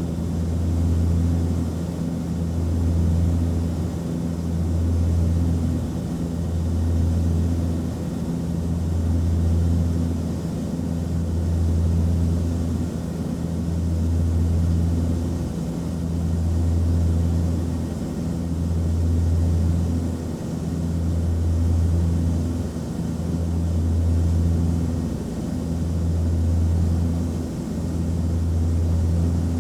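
Cabin drone of an Antonov An-24's twin turboprop engines and propellers in flight: a steady low hum that throbs evenly about once every two seconds.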